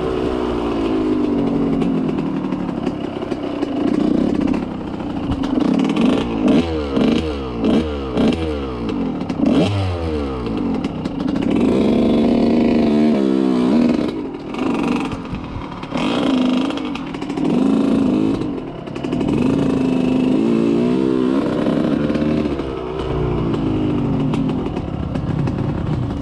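Small off-road vehicle engine running along a rough trail, its revs rising and falling over and over, with some clattering from the bumpy ground.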